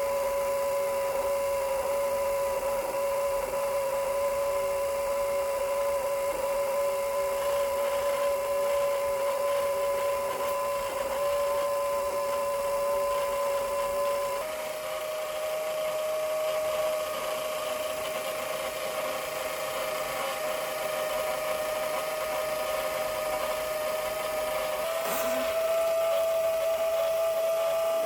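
Small electric motor running with a steady hum. Its pitch steps up slightly about halfway through, and again with a click near the end, as if it were switched to a higher speed.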